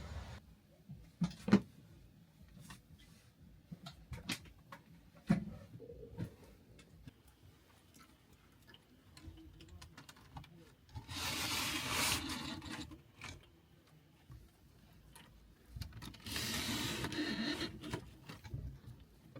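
Small knocks and clicks of objects being handled, with two longer noisy sounds of about two seconds each, one about eleven seconds in and one near the end.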